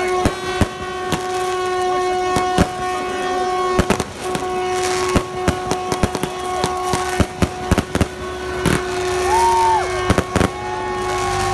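A horn holding one steady note, with many irregular sharp cracks of firecrackers going off. Near the end come short gliding whoops.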